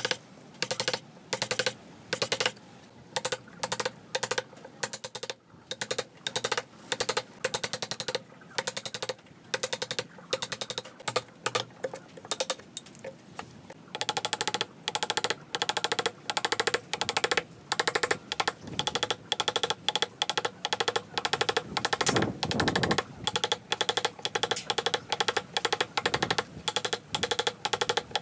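Chisel being struck in quick, even taps, several a second, driving it down into a wooden beam to chop waste out of a hand-cut joint. From about halfway through, the strikes ring more.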